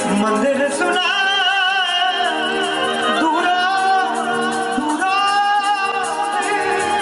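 Live Punjabi devotional jagran song amplified through a PA: a male singer holds long, wavering notes over keyboard and an even percussion beat.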